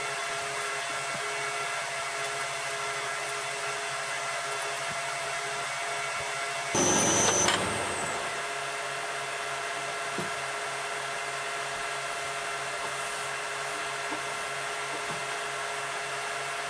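Metal lathe running with a steady motor hum, and a brief louder burst about seven seconds in as the spindle and four-jaw chuck are set turning.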